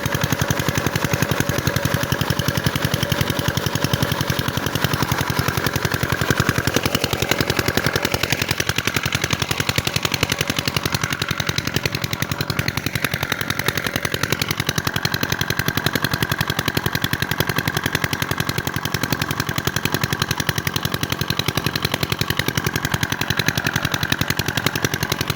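8.5 hp single-cylinder diesel engine of an irrigation water-pump set running steadily, with a fast, even chugging of firing beats.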